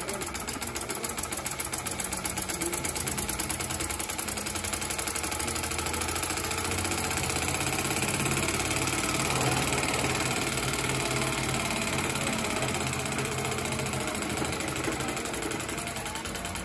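Homemade miniature steam engine running fast, its piston and crank making a rapid, even clatter as the flywheel spins.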